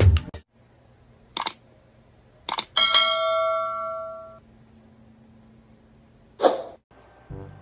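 Subscribe-button animation sound effects: two sharp clicks, then a bell chime that rings for about a second and a half and fades away, and a short rushing noise near the end.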